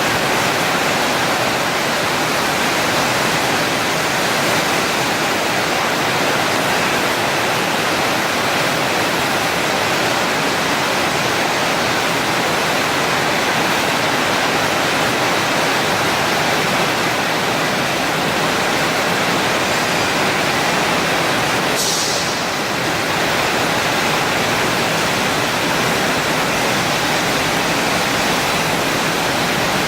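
Steady, loud hiss of a portable CNC cutting machine's torch cutting, with a brief sharper hiss and a slight dip about two-thirds of the way through.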